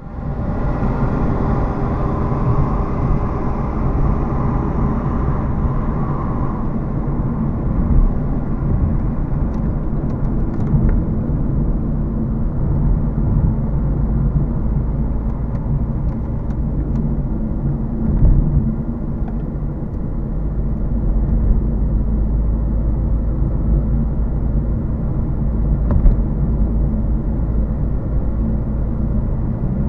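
Car driving at steady speed, heard from inside the cabin: continuous engine hum and tyre rumble on the road, with a few brief knocks.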